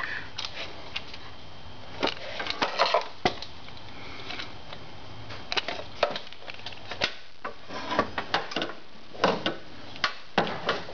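Plastic knocks, taps and rattles from handling a removed Audi A4 B6 headlight assembly, coming in scattered clusters of sharp clicks.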